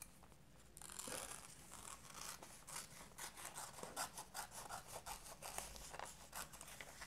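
Scissors snipping through a glossy magazine page, a run of short cuts several a second that starts about a second in, with the paper rustling as it is turned.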